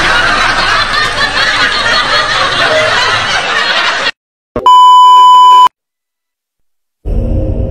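A dense, noisy rush of sound cuts off abruptly about four seconds in. After a moment of dead silence comes one loud, steady electronic beep lasting about a second, the tone that video editors insert as a bleep. Then silence again, and music starts near the end.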